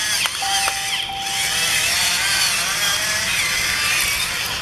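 Pepper mill grinding pepper over a bowl: a continuous gritty grating with squeaky, wavering tones over it, which stops near the end.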